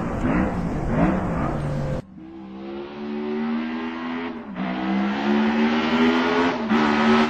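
Racing car engine at full throttle, climbing in pitch and dropping sharply at two upshifts. It opens with a few quick rising revs, then cuts abruptly about two seconds in to a quieter run that builds steadily.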